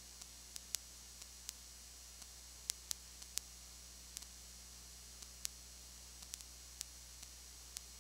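Recording noise only: a steady hiss and low electrical hum, with irregular sharp clicks scattered throughout. A few louder clicks come about three seconds in. No game sound or crowd is heard.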